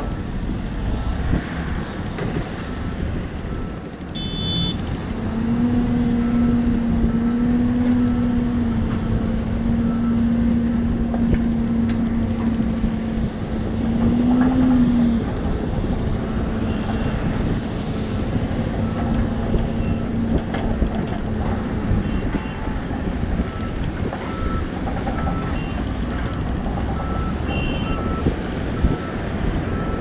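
Diesel engines of excavators and dump trucks running together, with one engine holding a steady note for much of the time and swelling briefly midway as it works under load. A faint reversing beeper beeps steadily about once a second.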